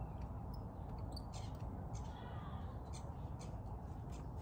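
Faint light clicks and rattles of plastic and metal parts being handled as a misting adapter is screwed onto a leaf blower's nozzle, over a quiet outdoor background with a few faint bird chirps.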